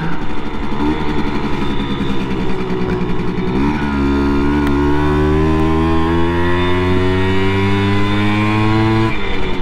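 Simson moped's single-cylinder two-stroke engine under way. About a third of the way in the throttle opens and the engine pitch climbs steadily as it accelerates, then dips briefly near the end, as with easing off or a gear change.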